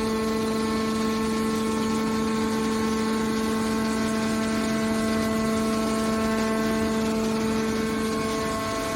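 Hydraulic pump motor of a horizontal metal baler running with a steady, even-pitched hum.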